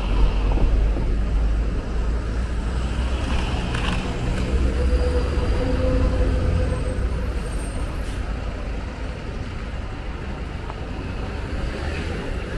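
Street traffic: motor vehicles passing with a steady low engine rumble, and a brief whine for a couple of seconds near the middle.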